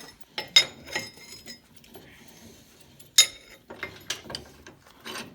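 A small steel workpiece being set into a clamp and the clamp tightened: scattered metal clicks and clinks, the sharpest about three seconds in, followed by a quick run of clicks.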